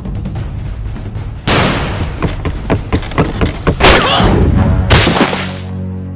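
A volley of gunshots: light cracks at first, then from about a second and a half in a fast string of loud shots that stops shortly before the end, over background music.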